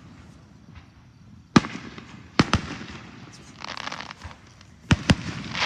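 Fireworks exploding: a sharp bang about a second and a half in, a quick pair of bangs a second later, and another quick pair near the end, with brief hissing noise between them.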